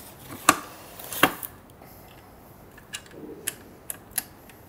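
Hard clicks and knocks of a monitor stand's foot being fitted onto its upright: two loud sharp ones in the first second and a half, then several lighter taps.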